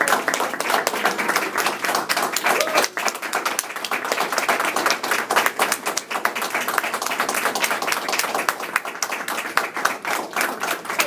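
Audience applauding: many people clapping at once, dense and steady, thinning a little near the end.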